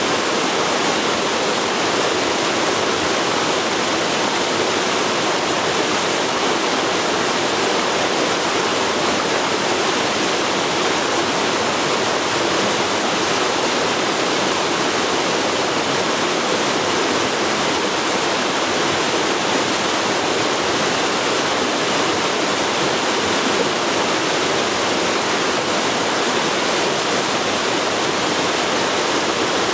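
Forest river flowing fast over rocks, a steady full rush of water.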